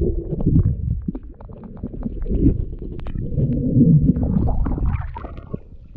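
Muffled underwater rumble of river water stirred by a gloved hand fanning the gravel bed, with small scattered clicks of pebbles knocking together; it dies down near the end.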